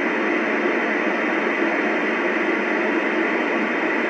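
Steady static hiss from a President Washington CB transceiver's loudspeaker, tuned to channel 26 with no voice coming through.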